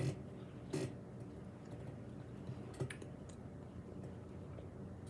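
Mouth sounds of eating a frozen ice cream bar: a handful of scattered short clicks and smacks of lips and tongue as it is licked and sucked, over a faint steady low hum.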